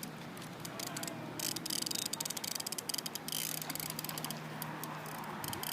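Fly reel's click-and-pawl drag ratcheting in rapid, irregular clicks, busiest in the middle of the stretch.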